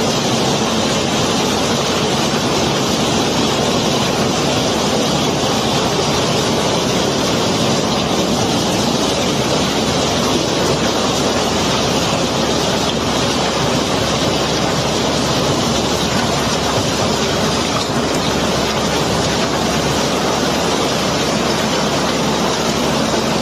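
Gravel being unloaded by a self-unloading ship: a loud, steady rush of pouring gravel over running machinery, unchanging throughout.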